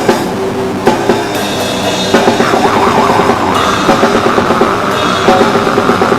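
Rock music with a drum kit and guitar playing, the drum hits coming regularly throughout.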